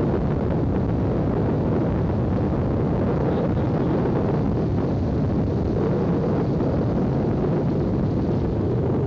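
Steady low rumble of wind buffeting the microphone, mixed with engine and road noise from a moving fire truck.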